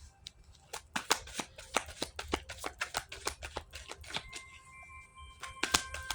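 A deck of tarot cards being shuffled, with a run of quick irregular card clicks and flicks. Soft background music with steady held notes comes in about four seconds in.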